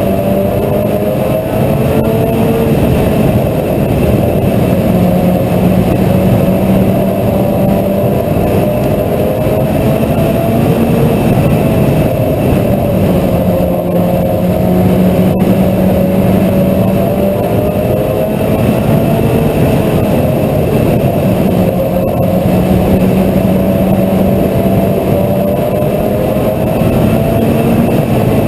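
Mini stock race car engine running hard, its pitch holding steady for a few seconds, then dipping and climbing again over and over as the car lifts and accelerates.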